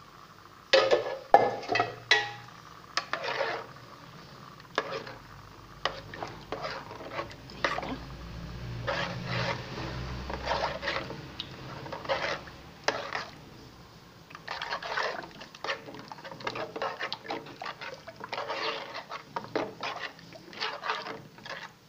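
A spoon stirring milk and rice in a metal cooking pot, with irregular clinks and scrapes against the pot's sides and bottom. There are a few louder knocks in the first three seconds.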